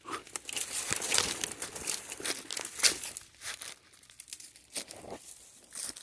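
Footsteps crunching through dry leaf litter and twigs, a dense crackle of dry leaves underfoot in the first half, thinning to scattered crunches after.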